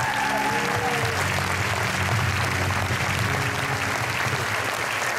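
Audience applauding steadily, with music playing underneath that fades out near the end.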